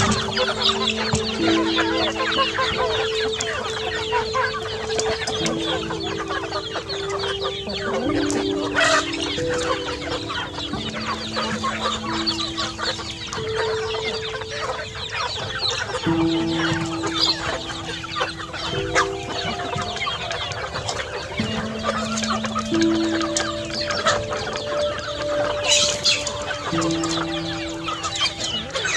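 A large flock of chickens clucking continuously as they feed, many birds calling over one another.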